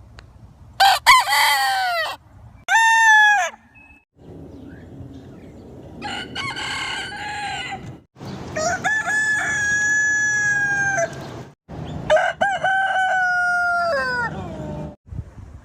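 Roosters crowing: five separate crows one after another, the longest, near the middle, held at a steady pitch for about two seconds before falling away.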